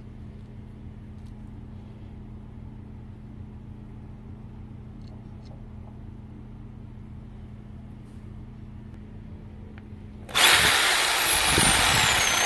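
A faint steady hum, then about ten seconds in an electric power tool starts suddenly and runs loud, with a high whine that falls steadily in pitch.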